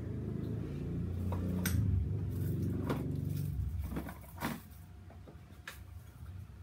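Sharp clicks and light knocks of a gift box and its contents being handled, about five in all, over a low rumble that fades out about four seconds in.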